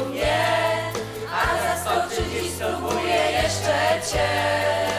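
Live amateur band playing a song: voices singing together over keyboard and a steady bass line, with a percussion beat.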